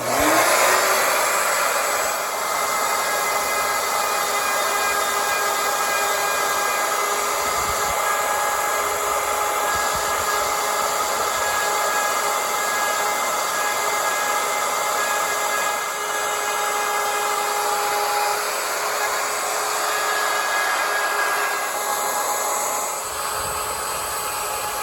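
Ryobi router switched on, its whine rising as the motor spins up, then running steadily while it cuts a hinge recess into the wooden window frame.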